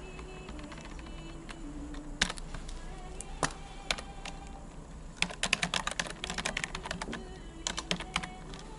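Typing on a computer keyboard: a few scattered keystrokes, then a quick run of keystrokes about five seconds in and another short run near the end.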